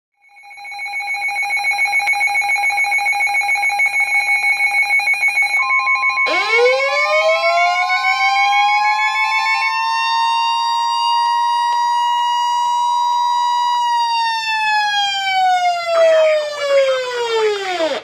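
Weather alert radios going off together for a NOAA Weather Radio severe thunderstorm warning. A fast pulsing two-pitch alarm beep sounds for the first half. The steady 1050 Hz warning alarm tone sounds from about five seconds in to about fourteen, while a siren-type alarm sweeps up, holds, and winds down near the end.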